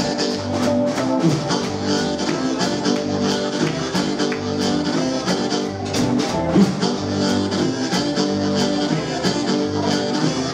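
Live blues band playing: blues harmonica cupped against a microphone and amplified, over electric guitar, double bass and drums keeping a steady beat.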